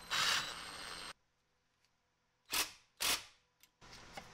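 Cordless drill-driver running in short bursts, driving in the screws that hold the vacuum actuator onto the supercharger's bypass valve housing: one run just after the start, then two short bursts about half a second apart past the middle.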